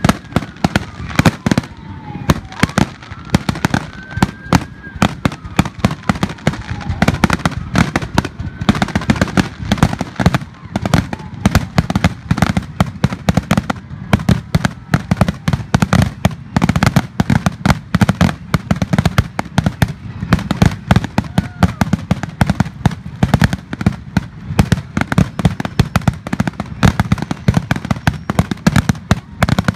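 Fireworks display: a rapid, unbroken barrage of shell bursts and launch bangs, several a second.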